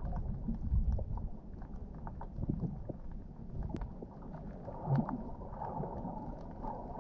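Underwater sound picked up by a camera held below the surface: a muffled, uneven low rumble of moving water with scattered faint clicks and pops.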